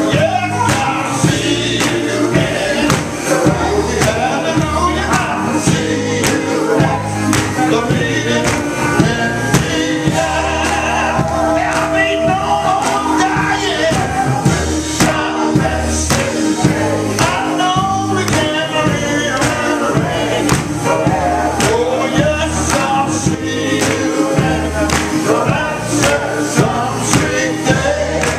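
Gospel quartet singing live: male voices in close harmony over instrumental backing with a steady beat.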